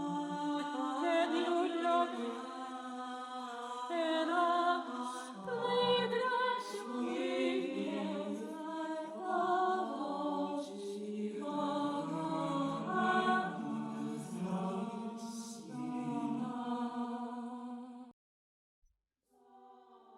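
AI-generated choral a cappella voices, with sustained notes that change pitch every second or two. The clip cuts off suddenly about 18 seconds in, and another sound starts just before the end.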